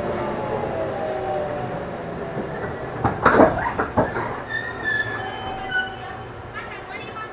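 Onboard running sound of a JR Kyushu 813 series electric train (KuMoHa 813-4, Toshiba GTO inverter) braking into a station: the inverter whine falls in pitch, a burst of loud clanks comes from the wheels about three seconds in, then short squealing tones follow as it slows.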